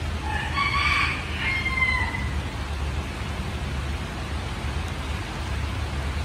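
Steady rain over a low, even rumble. About half a second in, a single pitched call lasting about two seconds sounds over it, ending on a falling note.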